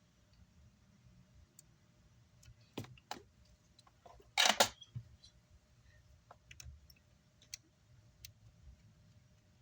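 Scattered small clicks and taps of tools and parts being handled at an electronics repair bench, with one louder, short rattling burst about halfway through.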